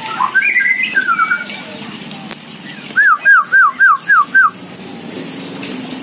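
Several songbirds singing and calling together: varied chirps and whistled phrases at first. About three seconds in comes a loud, even run of six repeated slurred whistled notes.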